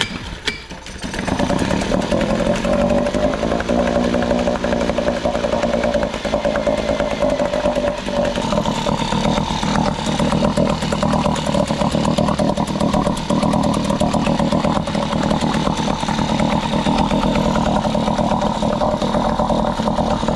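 Small Nissan 3.5 hp two-stroke tiller outboard pull-started: it catches about a second in and runs steadily. It runs well on the cylinder head swapped over from a Tohatsu 2.5, which cured its low compression from a cracked cylinder.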